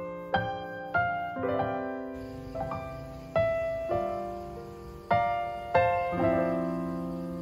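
Soft background piano music: slow notes and chords struck about every half second, each ringing and fading away.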